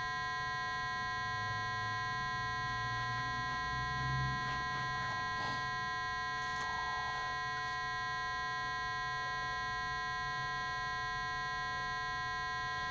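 A steady electronic hum made of several high, even tones runs throughout, and a lower hum joins it for a few seconds. Faint soft rustles of soil being crumbled by hand come through about halfway in.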